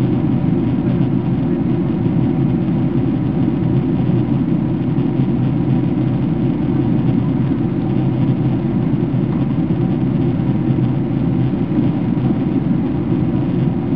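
Steady airliner cabin noise inside a Boeing 767-300ER on approach: a low, even rumble of engines and airflow, with a faint steady hum above it.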